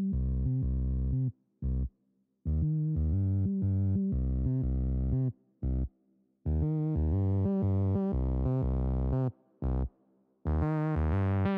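Background music: synthesizer phrases a second or more long, each cut off into brief dead silence before the next, with short single notes in between.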